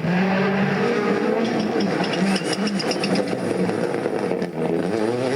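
Rally car engine pulling hard, its revs stepping up and dropping back through gear changes, with a quick run of sharp cracks about two seconds in.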